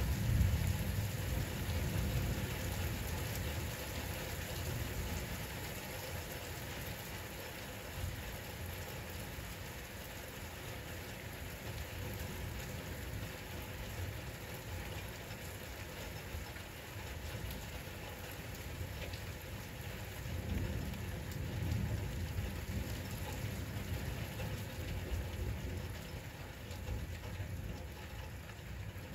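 Steady rain falling, with rolling thunder underneath: a low rumble dying away over the first few seconds, and another low rumble swelling and fading about twenty seconds in.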